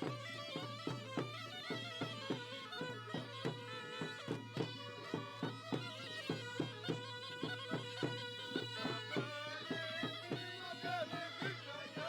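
Sampouna, the Mykonian goatskin bagpipe with double reed chanters, playing a lively folk melody over a steady drum beat of about three strokes a second.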